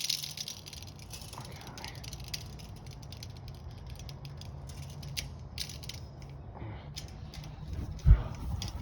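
Tape measure being pulled out and handled: a run of light ratcheting clicks over a low steady hum, with a thump about eight seconds in.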